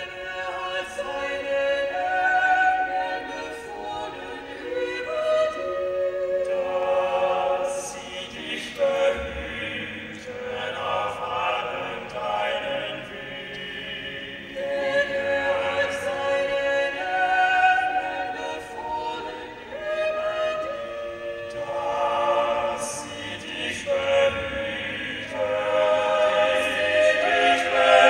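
Eight-voice a cappella vocal ensemble singing live, several voices holding long notes and chords in harmony that change every second or two.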